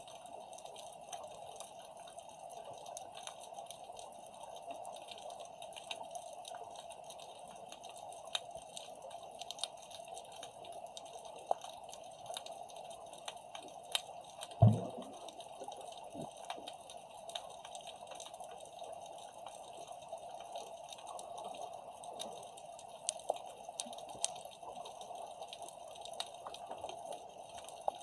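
Underwater ambience heard through a submerged camera: a steady hiss with constant faint crackling clicks, and one loud dull thud about halfway through.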